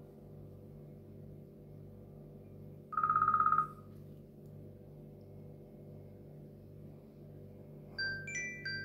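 iPhone SE alert tones. About three seconds in, one short, fast-trilling electronic beep lasts under a second. Near the end, a new tone starts with a quick run of bright chime notes at several pitches, over a steady low hum.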